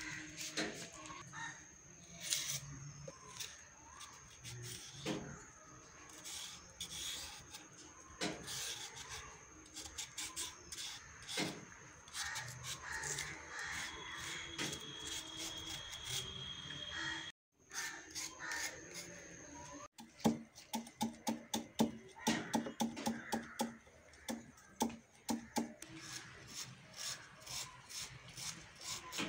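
A large kitchen knife shaving and scraping thin strips off a white vegetable stalk, in repeated short strokes. Toward the end the strokes come quickly and evenly, about two or three a second.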